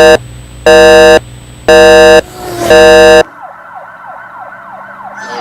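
Four loud, blaring horn blasts, each about half a second and about a second apart, followed about three seconds in by a siren wailing in quick falling sweeps, about three a second.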